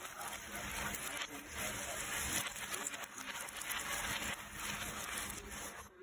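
Loose cardboard jigsaw puzzle pieces rustling and clicking against each other and the tabletop as hands sweep through and sort a pile of them, unevenly, without pause.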